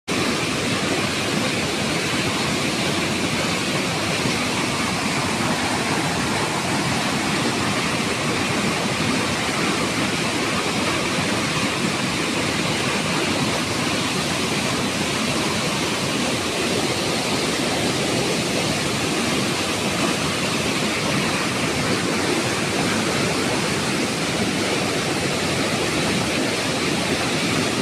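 Loud, steady rush of fast-flowing water, unbroken throughout.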